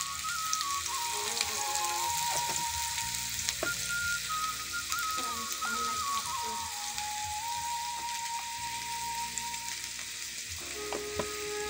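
Amaranth stalks sizzling as they fry in oil in a wok, a steady hiss with a few light clicks. A soft flute melody plays over it.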